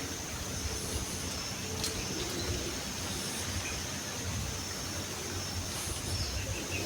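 Outdoor ambience: a steady, high-pitched insect drone over a low rumble of wind on the microphone.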